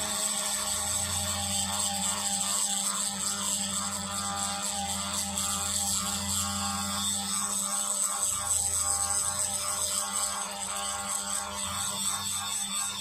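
Small electric drill running steadily with a whir, its bit grinding down into a glued eMMC chip.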